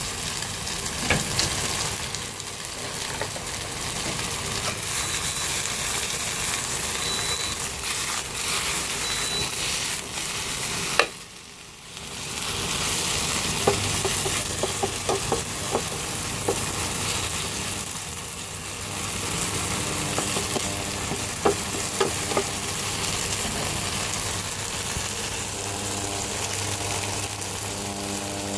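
Or suan (starch-and-egg omelette with oysters, mussels and shrimp) frying in oil in a nonstick pan, sizzling, with the spatula scraping and tapping the pan in scattered clicks. The sizzle drops briefly a little before halfway, and a low steady hum comes in just after and stays.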